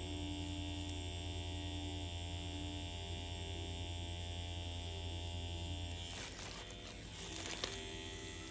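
Permanent-makeup pen machine running with a steady electric buzzing hum, which stops about six seconds in; a couple of seconds of rustling follow.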